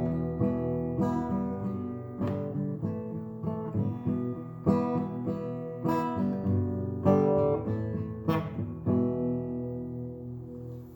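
Acoustic guitar playing the closing bars of the song, picked notes and strummed chords. About nine seconds in it settles on a final chord that rings out and fades.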